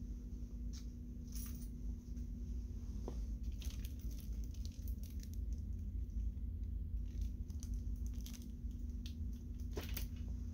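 Handling and walking rumble on a handheld phone microphone, under a steady low hum, with scattered light clicks and rustles.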